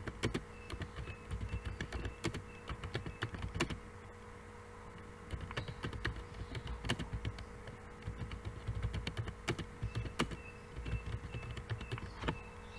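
Computer keyboard typing in quick runs of keystrokes, with a pause of about a second a third of the way through.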